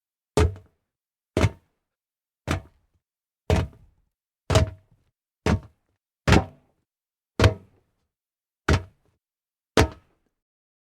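Jumps landing on solid metal, heard as ten separate short thuds about a second apart, each dying away quickly.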